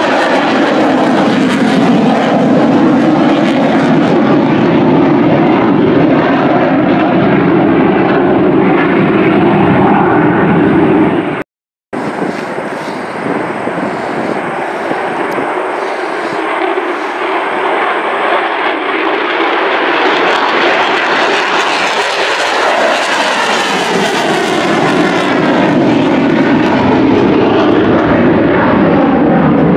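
Loud jet noise from military fighter jets flying over, broken once by a short dropout a little before halfway. In the second half the sound grows brighter and hissier as a jet passes close.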